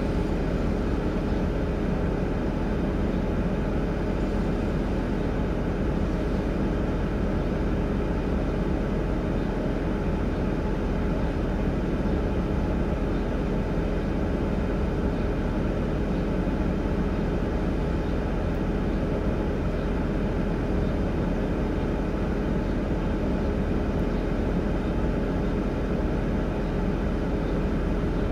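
Steady drone of an idling vehicle heard from inside its cab: an even hum with a few constant tones that does not change.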